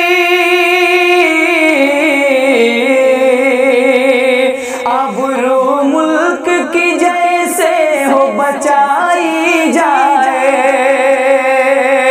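A man singing an Urdu nazm in a high voice. He holds one long note, slides down about a second in, then draws the vowels out in wavering, ornamented runs.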